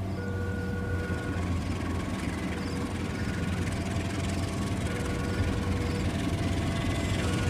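Diesel engine of an approaching CC206 locomotive running with a deep steady drone that slowly grows louder. A few faint, brief steady tones come and go above it.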